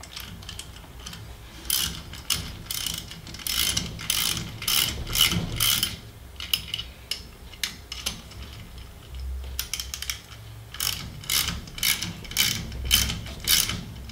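Socket ratchet clicking in runs of quick strokes as the cylinder-head acorn nuts of a two-stroke bicycle engine are run down hand-tight, with a short pause about halfway through.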